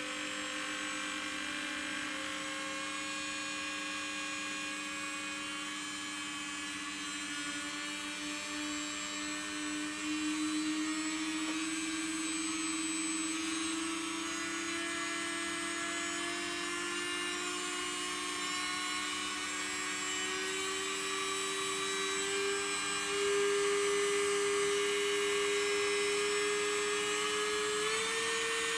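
Motor-driven shaft spinning at high speed, a steady whine that rises slowly in pitch as the shaft speeds up toward about 27,500 rpm, with a small step up near the end.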